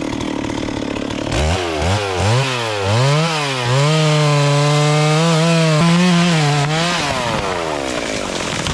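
Two-stroke chainsaw revved in a few quick throttle blips, then held at high revs for about three seconds before winding down to idle near the end.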